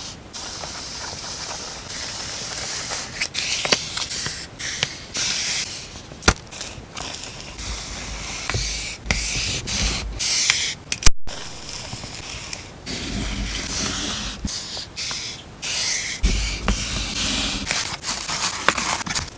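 Hands unboxing stationery: plastic packaging and wrappers rustling and crinkling, with scattered taps and clicks and a few soft thuds.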